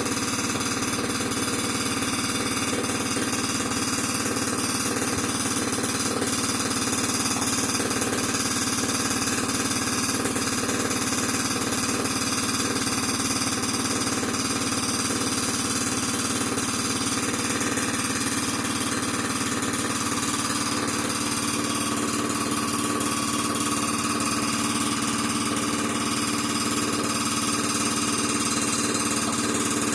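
Air compressor running steadily during cleaning work.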